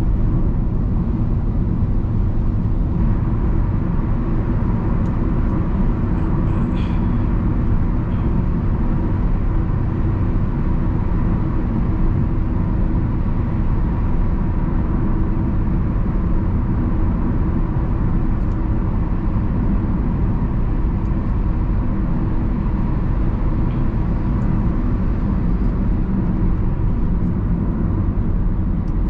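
Inside the cabin of a 2014 Honda Civic 1.8 i-VTEC cruising at over 90 km/h: a steady, even drone of road and engine noise.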